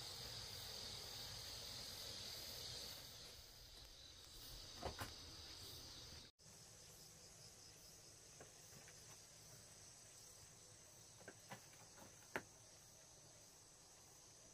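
Insects droning steadily in the surrounding greenery, a high-pitched, even sound that is loudest in the first few seconds and then fades to a fainter background. A few faint clicks come through later on.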